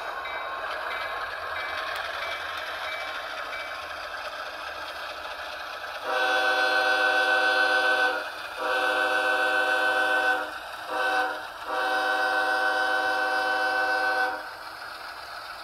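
Sound decoder of an HO-scale Athearn GE ES44AC model diesel locomotive playing its diesel engine sound, with the bell ringing for the first few seconds. Then the multi-chime horn blows long, long, short, long, the grade-crossing signal.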